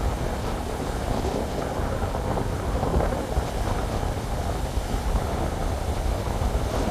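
Rough surf breaking and washing up the beach in a steady rush, with wind buffeting the microphone as a heavy low rumble underneath.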